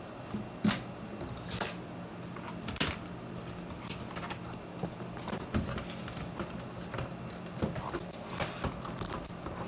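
Irregular clicks and taps of plastic keyboard parts being handled and pried apart during disassembly of a mechanical keyboard, the sharpest about a second in and near three seconds, with a quicker run of small clicks near the end.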